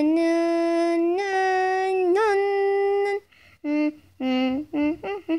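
A person humming with no words. One long held note rises slightly and wavers, then breaks into a quick run of short notes near the end.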